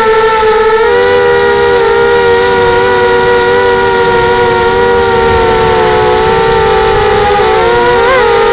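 Brushless motors of a Pitbull 250 FPV racing quadcopter whining at a nearly steady pitch, several close tones beating against each other. The pitch wobbles quickly up and down near the end as the throttle changes.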